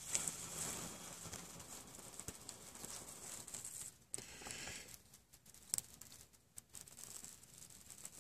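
Faint, irregular crackling and rustling from a small fire of dry leaves and twigs burning in a hobo stove, with a few sharper clicks.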